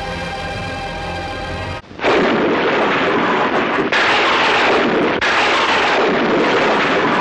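Music for about the first two seconds, then the loud BBC Sound Effects Library stock thunderclap: a sudden crash of thunder followed by a long rolling rumble. Two abrupt jumps near the middle suggest the clap has been edited or restarted.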